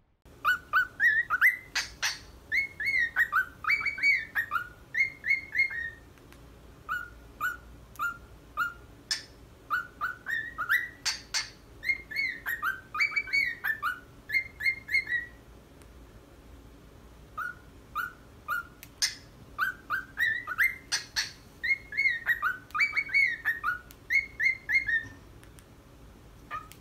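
Cockatiel whistling a learned tune: quick rising and falling whistled notes, the same phrase sung three times with short pauses between.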